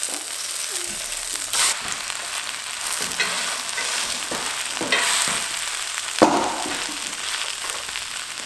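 Scallion pancake sizzling in oil in a cast-iron skillet just after being flipped, while a slotted metal fish spatula presses and scrapes it down. The spatula scrapes and knocks against the pan a few times over the steady sizzle, the loudest knock about six seconds in.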